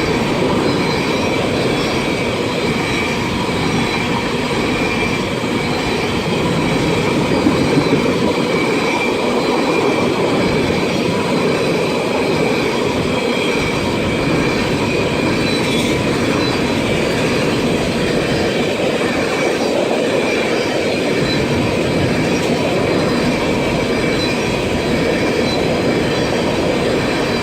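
Freight train cars rolling past close by: a steady, loud rumble and clatter of steel wheels on rail, with thin, high, steady wheel squeal running over it.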